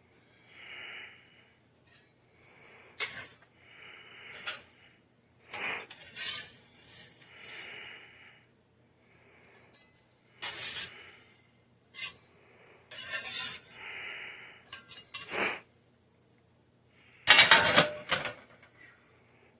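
A utensil scraping and clinking against a small baking pan and a plate while pizza slices are moved onto the plate, in irregular knocks and scrapes. The loudest clatter comes near the end.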